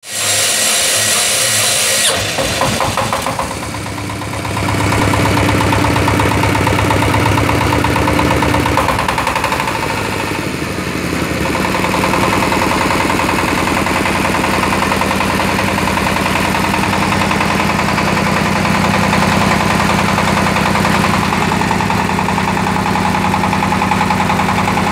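A 24 hp diesel engine on a baling press being started by its electric battery starter. The starter whines for about two seconds, then the engine catches and settles into a steady run. Its speed dips and picks up again about ten seconds in.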